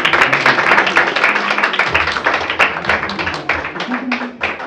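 A congregation applauding: many hands clapping together, thinning out toward the end.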